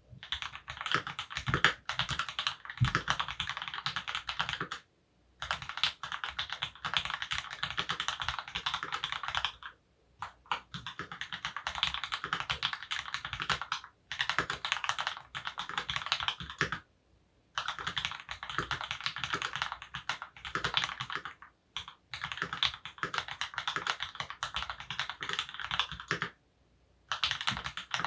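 Fast typing on a Monstargear XO K80 aluminium mechanical keyboard, sandwich-mounted with an FR4 plate and lubed Opblack switches, dampened with Thinsulate and silicone foam. The keystrokes come in dense runs of several seconds, broken by short pauses every four to five seconds.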